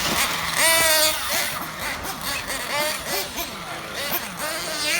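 Thunder Tiger Sledge Hammer S50 1/8-scale nitro monster truck engine revving high and easing off in repeated bursts, its pitch rising and falling. The strongest rev comes about a second in.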